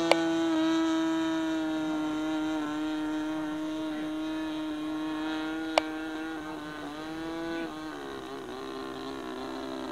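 Engine of a radio-controlled model PT-19 running in flight, a steady buzzing tone that slowly sinks in pitch, then drops lower about eight seconds in. Two brief sharp clicks, one right at the start and one about six seconds in.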